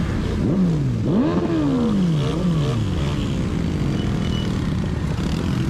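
A vehicle engine revving: its pitch climbs sharply about half a second in, then falls away over about a second and a half, with a second, shorter drop around the middle, over a steady rushing noise of wind and road.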